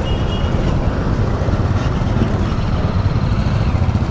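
Motorcycle engine running on the move, heard from the rider's own bike as a steady low rumble.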